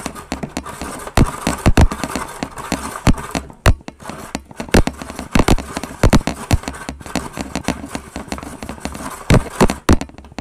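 Toy Snoopy snow cone maker being cranked by hand, its blade grinding ice cubes into shaved ice, with irregular loud knocks and clatter as the ice and plastic mechanism jolt. The crunching stops suddenly at the very end.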